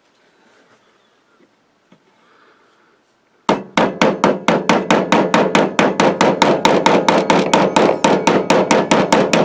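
A hammer tapping a roll pin into an AR-15 charging handle's latch, held in a bench block. About three and a half seconds in, a rapid, even run of sharp metallic taps begins, about four to five a second, driving the pin home.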